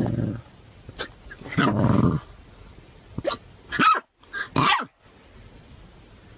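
A puppy hiccuping and growling at its own hiccups: a short low growl, a sharp hiccup about a second in, another growl near two seconds, then a hiccup and a few high yelping barks falling in pitch around four seconds.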